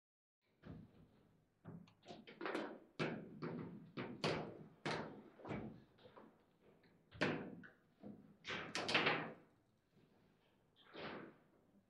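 Table football being played: an irregular run of sharp knocks and thuds as the ball is struck by the figures and the rods knock against the table. The loudest cluster of hits comes about three quarters of the way through.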